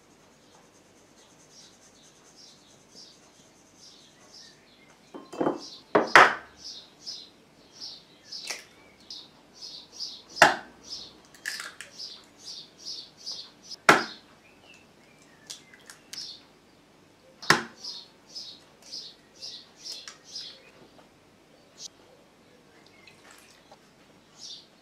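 Eggs cracked one after another against a bowl's rim: four sharp knocks a few seconds apart, the first a double tap. Behind them a small bird chirps rapidly, about two or three chirps a second.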